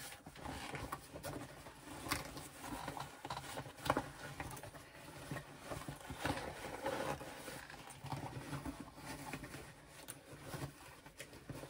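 Fabric rustling and scuffing as a sewn bag is handled, its lining pushed down inside the outer and the corners worked into place, with a few small clicks among the rustles.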